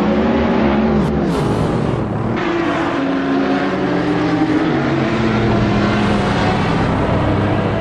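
Dubbed-in car engine sound effect, the engine note falling and rising several times as if revving through gear changes, with two brief sharp noises about a second in.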